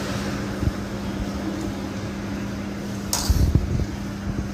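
Steady machine hum with a constant low tone, and a short burst of hiss with a few low knocks about three seconds in.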